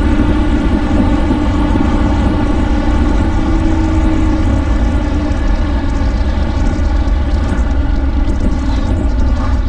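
Ducati Monster R's V-twin engine running steadily while the motorcycle slows from about 50 mph, with heavy wind rumble on the microphone.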